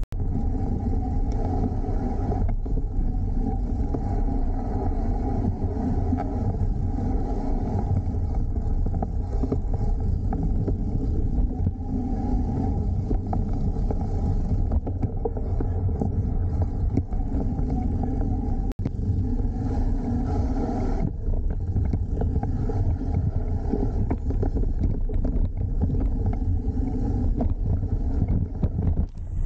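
Riding noise of the State Bicycle Company 6061 Black Label All-Road bike in motion: a steady low rumble of tyres rolling over the ground, with a brief break about nineteen seconds in.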